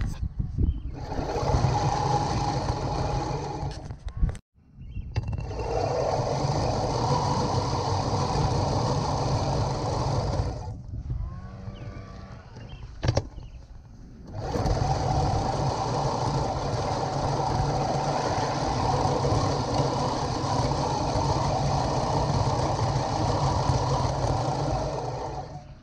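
Sun Joe MJ502M 20-inch manual reel mower being pushed through grass, its spinning reel blades whirring steadily as they cut. The whirring runs in three long passes, dropping out briefly about four seconds in and going quieter for a few seconds just past the middle.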